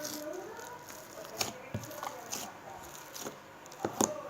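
Slime being squished by hand, giving a string of sharp wet pops and clicks, the loudest near the end.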